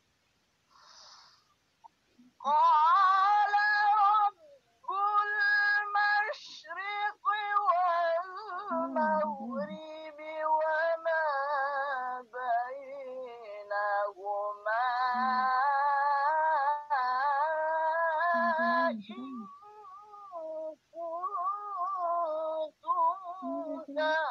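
A high voice chanting Quran recitation in the drawn-out melodic tarannum style, with long wavering held notes and short breaks for breath. It starts about two and a half seconds in, after a near-silent opening.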